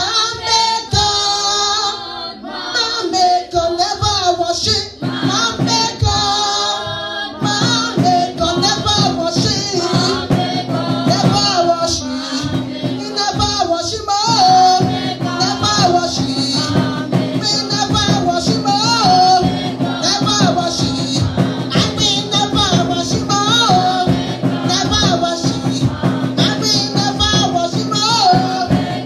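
A woman singing into a handheld microphone through a PA, with backing music and a steady beat joining in about five seconds in.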